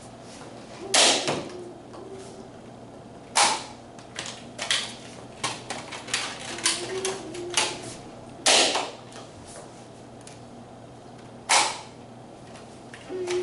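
Nerf Rival foam-ball blaster firing four sharp spring-powered pops a few seconds apart, with lighter clicks between them.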